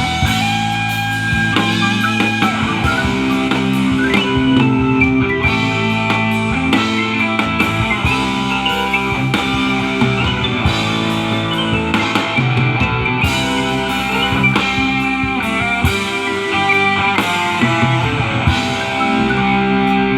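Band playing rock music: guitar chords over a drum kit.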